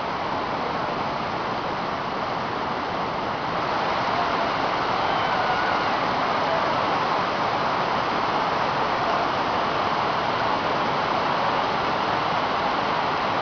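Waterfall's steady rush of falling water, growing a little louder about three and a half seconds in.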